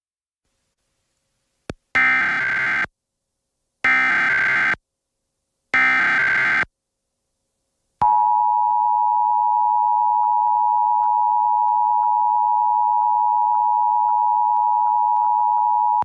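Emergency Alert System signal: three short bursts of screeching header data tones about two seconds apart, then the steady two-tone attention signal held for about eight seconds. This marks the start of an EAS test message.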